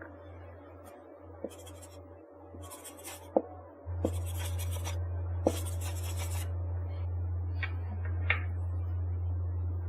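Pen scratching on paper in short strokes, with a few light taps, over a steady low hum that gets louder about four seconds in.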